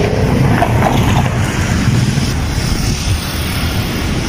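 City road traffic at a street intersection: cars and motorcycles passing in a steady rumble.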